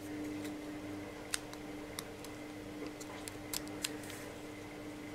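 Light plastic clicks and taps as the cruise-control switch housing and its buttons are handled and pressed together, about half a dozen sharp clicks spread through, over a steady low hum.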